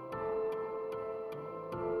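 Background music: soft held chords that change near the start and again near the end, over a light tick about two and a half times a second.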